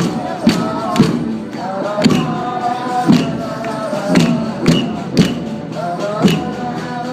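Live music with a heavy drum beat, the hits often half a second or a second apart, and a melody line wavering over it.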